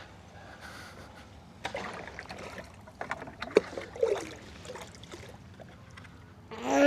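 Scattered knocks and handling noises, then a loud goat bleat that begins just before the end.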